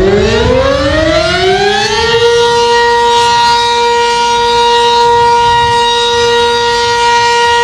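Civil defense siren winding up, its pitch rising for about two seconds, then holding one steady tone.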